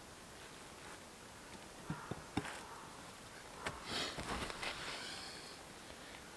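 Wooden sticks knocking together three times in quick succession, then about two seconds of rustling and crackling as branches are handled.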